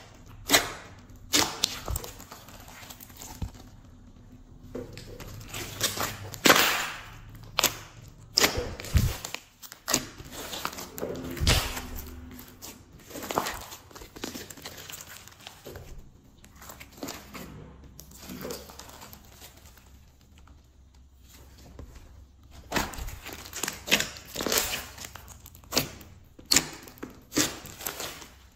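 Glossy slime being squeezed, kneaded and stretched by hand: irregular wet squelches and sharp crackling clicks as trapped air is squeezed through it.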